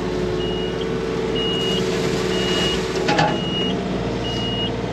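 Mini digger's warning alarm beeping about once a second, five evenly spaced high beeps over the steady hum of the running diesel engine; the alarm goes with the engine oil warning light being on. A single clank sounds about three seconds in.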